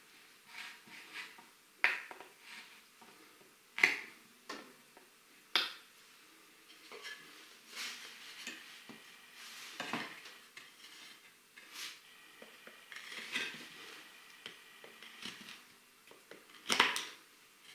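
Wooden crosspieces and poles handled and knocked together, with a knife tip scratching the wood; irregular clicks and scrapes with a few sharp knocks, the loudest near the end.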